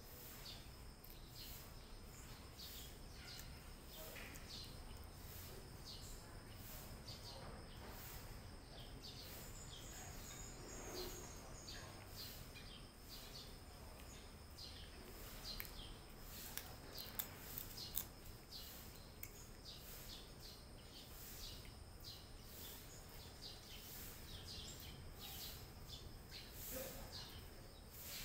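Two cats chewing food from a plastic plate: a run of faint, quick crunching clicks, with a bird chirping briefly in the background.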